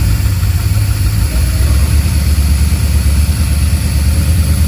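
Freshly installed Blueprint 427 V8 with FiTech fuel injection, idling steadily just after it has been fired up. The exhaust note is low and even, and the engine is running well.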